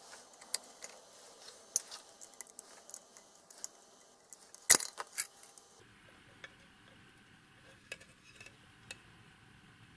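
Small clicks and metallic clinks of a screwdriver and small metal parts being handled while a circuit-board stack is taken apart, with one sharp click about halfway through.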